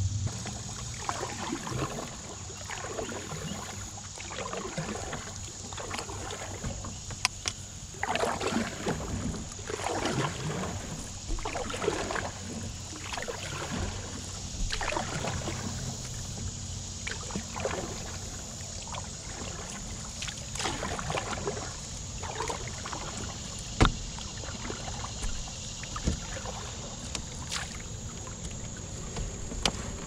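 Canoe paddle strokes in calm river water: the blade swishing in and dripping out roughly once a second. A single sharp knock about four-fifths of the way through stands out as the loudest sound.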